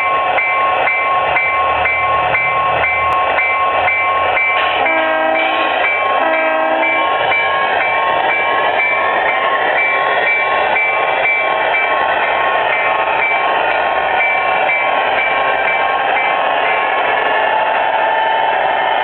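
A Soundtraxx Sierra sound board in an Aristocraft FA1 G-scale model diesel locomotive plays diesel engine sounds through the model's speaker, with a steady high whine. It sounds two short horn blasts about five and six and a half seconds in.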